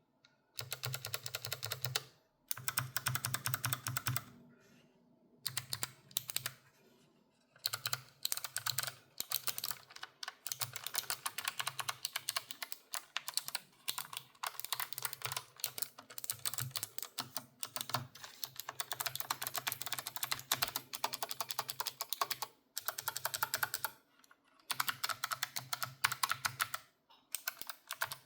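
Typing on a Logitech G915 X low-profile keyboard with GL Blue clicky switches: fast runs of sharp key clicks broken by short pauses.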